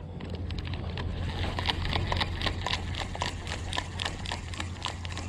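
Fishing reel being cranked in, clicking about four or five times a second, over a steady low hum.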